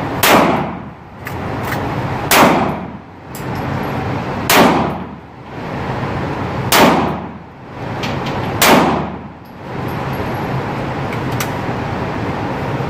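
Five handgun shots fired one at a time, about two seconds apart, echoing in an indoor shooting range over a steady background hiss.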